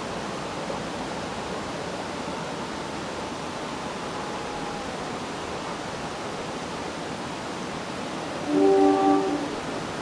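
A train's multi-tone air horn sounds a short double blast about eight and a half seconds in, the loudest sound here, over a steady background hiss.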